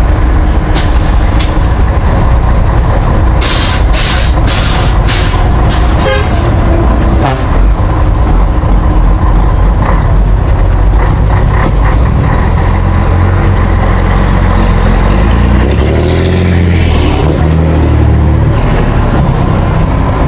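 Scania 113H truck's 11-litre six-cylinder diesel with a straight-piped exhaust running loud as it rolls past pulling a two-axle trailer. A few seconds in come several short bursts of air hiss from the brakes, and near the end the engine note rises and falls as it accelerates.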